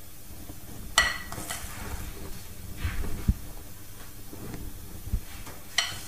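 Two sharp ringing clinks of a utensil against crockery, about a second in and near the end, between soft knocks and rustling of handling on a wooden worktop.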